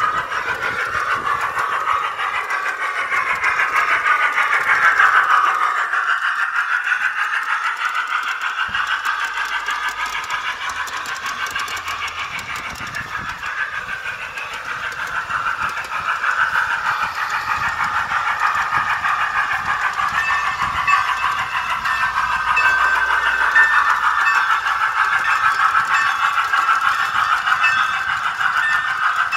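G-scale model train's sound system playing locomotive sounds through a faulty, poor-quality speaker: thin and tinny, with almost no bass, running continuously.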